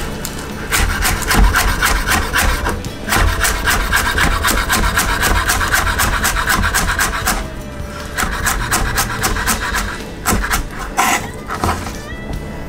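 Chef's knife rapidly chopping green onions and cilantro on a wooden cutting board: quick taps of the blade on the board, several a second, in three runs with brief pauses between them.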